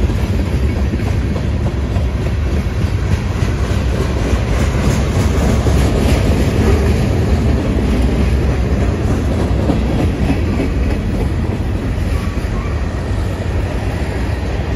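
Freight train cars rolling past close by: a loud, steady noise of steel wheels running on the rails, strongest in the low range, with no break as car after car goes by.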